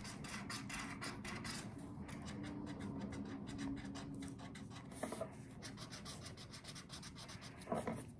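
Felt-tip marker rubbing back and forth on corrugated cardboard as a shape is coloured in, in rapid repeated strokes.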